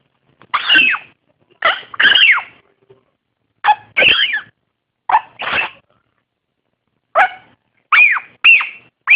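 Young blue-crowned conure babbling as it practises talking: short, loud squawky calls, mostly in pairs, many with a pitch that rises and falls, coming every second or so.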